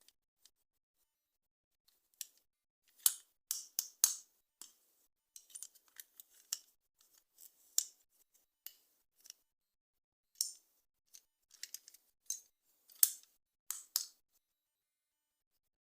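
Toy packaging being handled and opened: scattered sharp clicks and short rustles with quiet gaps between. The first two seconds are nearly empty, and the loudest clicks come about three seconds in and again near the end.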